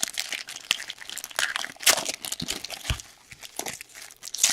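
Plastic trading-card pack wrappers crinkling and tearing as hockey card packs are opened and handled, in a run of irregular crackles with a louder crinkle about two seconds in and another near the end.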